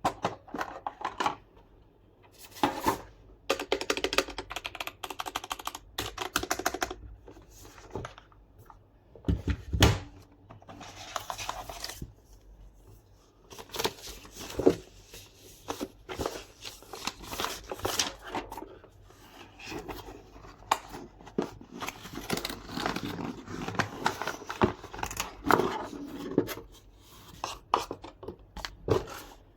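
Keyboard packaging being handled and opened: irregular rustling, tearing and scraping with small clicks, and one heavier thump about ten seconds in.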